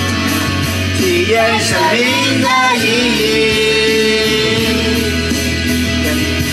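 Karaoke: a man singing into a handheld microphone over a music backing track, his voice amplified through the speaker.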